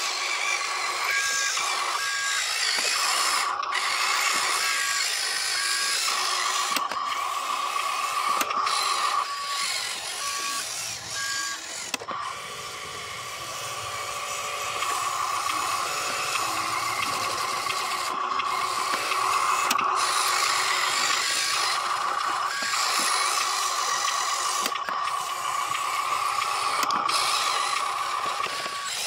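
Electric drive motor and gearbox of an RC dump truck whining steadily as it drives over dirt, with short alternating two-tone beeps a second or so in and again around ten seconds in.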